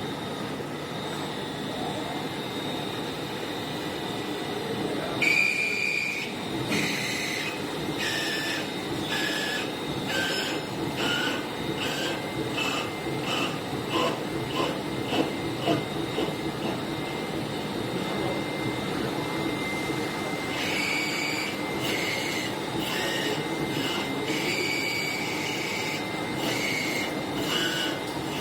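CNC machine milling aluminium: a steady machine noise with a thin high whine, broken by a run of short high-pitched screeches, about one or two a second, as the cutter bites into the metal.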